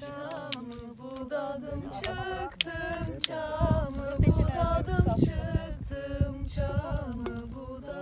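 Women singing unaccompanied, with long held notes that waver in pitch.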